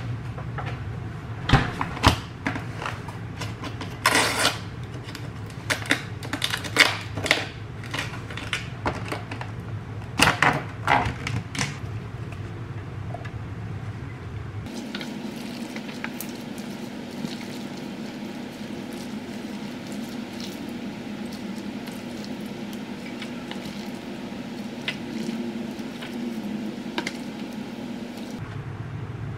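Kitchen clatter: dishes, cutlery and cupboards knocking and clinking over a steady low appliance hum. About halfway through, the clatter stops and a different steady hum takes over.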